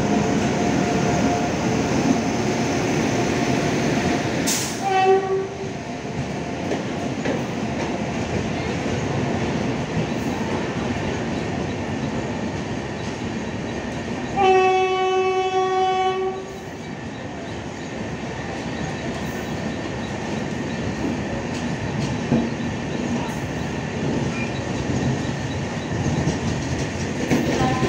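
Passenger train rolling past at a station platform: a steady rumble and clatter of coach wheels on the rails. A short train-horn blast sounds about five seconds in, and a longer, louder horn blast of about two seconds about fourteen seconds in.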